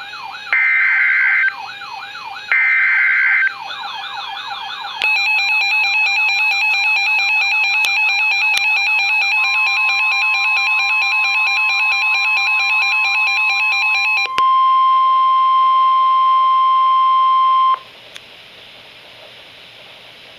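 Emergency Alert System tones. Three loud bursts of screeching data header in the first three and a half seconds, over a fast repeating wailing sweep. From about 5 s the wailing sweeps run loud together with steady alert tones, then at about 14 s they give way to a single loud steady tone that cuts off near 18 s, leaving faint hiss.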